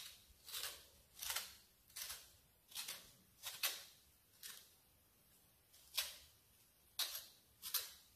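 A lemon being zested on a hand grater: about a dozen short, raspy scrapes, one every half second to second, with a pause of over a second past the middle.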